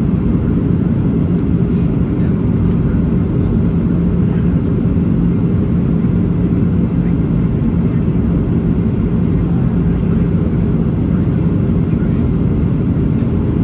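Cabin noise in a Boeing 737-800 seated over the wing on descent to land: a steady low rumble of its CFM56-7B engines and airflow, with a steady hum.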